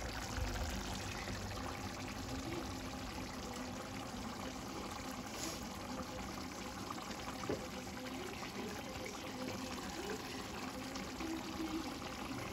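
Thin curry gravy in a wok being stirred with a metal ladle, the liquid trickling and pouring off the ladle back into the pan over a steady, quiet simmer.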